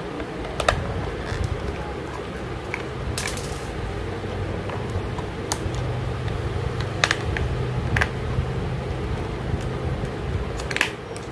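Small screwdriver turning a screw into a plastic toy car's body, with scattered sharp clicks and knocks of the hard plastic parts being handled, over a steady low hum.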